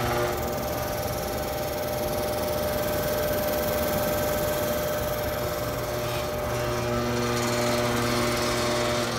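Husqvarna PG 280 SF concrete grinder's 2 hp electric motor running steadily, its grinding head spinning freely off the floor. The machine gives a steady hum with a higher tone over it.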